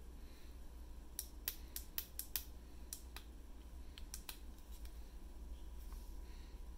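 Sharp clicks and taps from a hand handling a rechargeable LED light bar, about nine in all, most of them in the first half.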